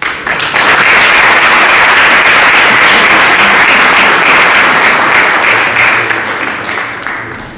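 Audience applauding: it breaks out suddenly, holds steady for about six seconds, then dies away over the last second or so.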